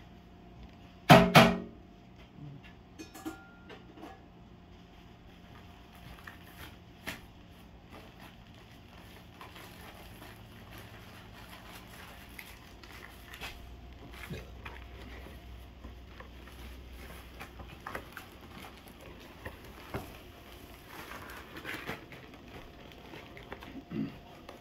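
Light handling sounds of food preparation on a kitchen table: scattered faint knocks, taps and rustles. Two loud, short sounds come about a second in.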